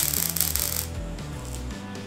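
MIG welding arc crackling in a burst of about a second as a rust-repair patch is welded into a car's tail light panel, then dropping away. Background music plays underneath.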